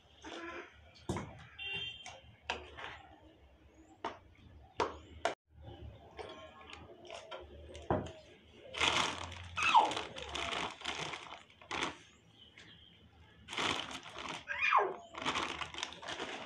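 Scattered clicks and knocks of steel kitchenware at a gas stove, then a spice packet rustling and crinkling in two longer stretches, about nine and fourteen seconds in.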